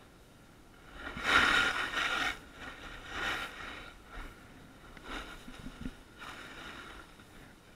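Edges scraping across hard, chopped-up piste snow through a run of turns. There are four scrapes; the first, about a second in, is the longest and loudest, and the later ones are shorter and fainter.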